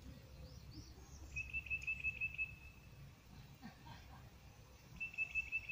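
A songbird's trill: a run of quick chirps at one steady high pitch, about eight a second, given once about a second in and again near the end.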